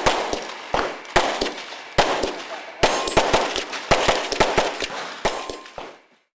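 Handgun fire in practical-pistol strings: sharp shots at uneven spacing, often several within half a second, each with a short echo. The shooting cuts off abruptly about six seconds in.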